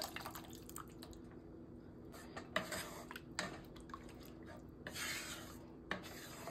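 Wooden spatula stirring thin curry in a metal pot: soft liquid slops and a few brief taps and scrapes against the pot, with one longer swish about five seconds in. A faint steady hum runs underneath.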